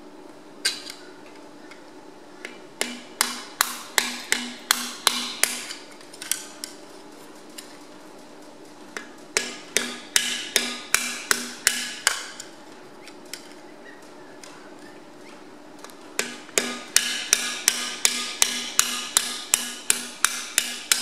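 Hammer blows on a steel drift or screwdriver driving out a thin cast-iron cylinder liner from the Perkins AD3.152 engine block of a Massey Ferguson 135. The blows come in three runs of sharp strikes, about three a second, each with a short ringing tone.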